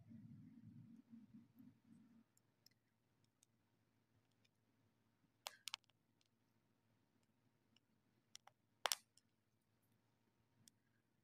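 Faint handling sounds of an ointment tube being squeezed out over cream in a plastic bowl: a low rustle for about the first two seconds, then near silence broken by a few sharp clicks, the loudest about nine seconds in.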